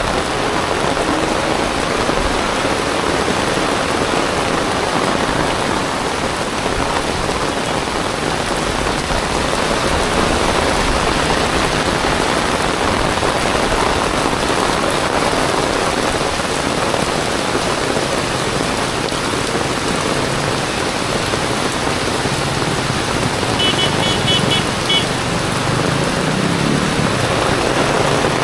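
Heavy tropical rain pouring steadily onto a wet city street, a dense, even hiss with no let-up. Near the end a vehicle engine rumbles as traffic passes, and there is a short run of high beeps.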